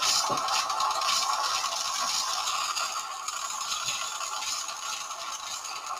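Handling noise: something scraping and rustling against the camera's microphone. It is a continuous scratchy scrape that slowly fades.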